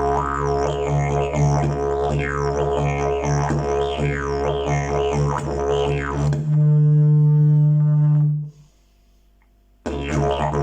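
Fiberglass slide didgeridoo playing a low drone whose overtones sweep up and down. About two-thirds through, it jumps to a louder held note about an octave higher, stops for about a second, then the drone starts again near the end.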